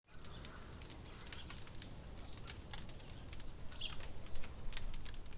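Faint outdoor ambience: a few bird chirps and scattered light ticks over a steady low rumble.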